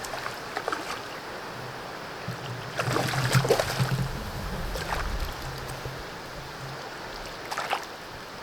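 River water running steadily, with a few brief louder noises about three seconds in, about five seconds in and near the end.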